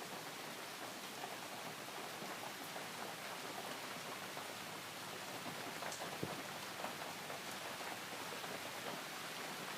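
Steady rain falling: an even hiss with scattered patter of drops, and one sharper tick about six seconds in.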